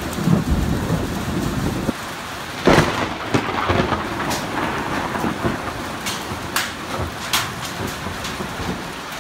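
Rain and wind of a thunderstorm on a phone's microphone: a steady dense hiss, with one loud rush about three seconds in and a few sharp taps after it.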